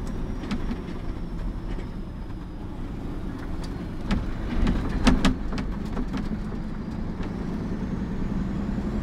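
Mercedes-Benz mixer truck's diesel engine running, heard from inside the cab, with scattered knocks and rattles; the engine note rises slightly near the end.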